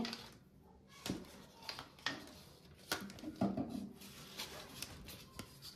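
Soft handling noises: a paint-chip fan deck strip and paper swatch cards being moved and flexed over a table, with a few faint clicks and taps spread through.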